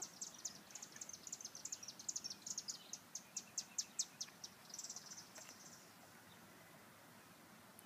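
Small bird chirping: a run of short, high chirps, about three or four a second, growing louder and ending in a brief buzzy trill about five seconds in.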